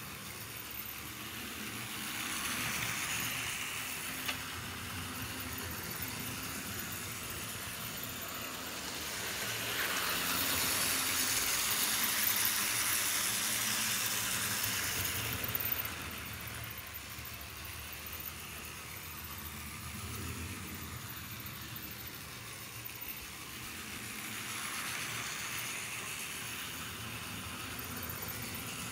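TT-scale model diesel locomotive and coaches running on sectional track: a steady whir of the small electric motor with rolling wheel noise. It swells as the train passes close, loudest in the middle, drops off suddenly as it pulls away around the loop, and grows again near the end.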